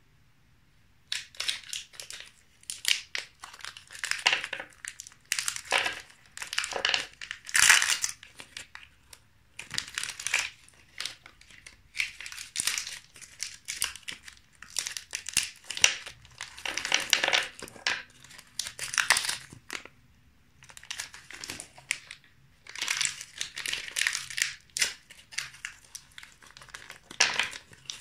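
Close-miked crinkling and crunching as Mamba chewy candies are handled and cut with a knife, in irregular bursts starting about a second in, with short pauses between groups.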